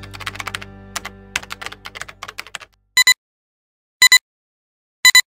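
A burst of rapid typing-like clicks over fading music, then a film-leader countdown: three short beeps about a second apart, each a quick double blip, with silence between.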